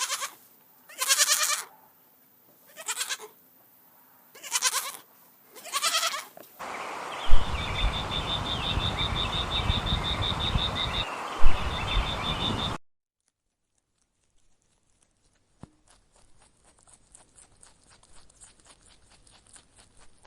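An animal calling five times in about six and a half seconds, each call short with a pitched, layered tone. A stretch of dense noise with a steady high pulsing tone follows for about six seconds and cuts off suddenly, leaving near silence with a few faint ticks.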